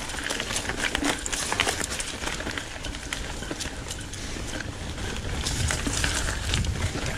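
Mountain bike rolling down a rooty dirt trail: tyre noise on the ground with frequent short clicks and rattles from the bike over roots and bumps, and a low rumble that grows stronger in the second half.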